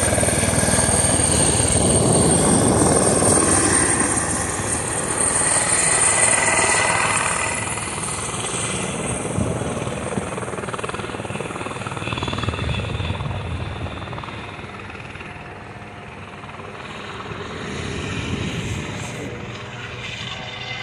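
Eurocopter EC130 helicopter flying away: rotor and turbine noise fade slowly with distance, with a few swells, and a high steady turbine whine dies out after the first several seconds.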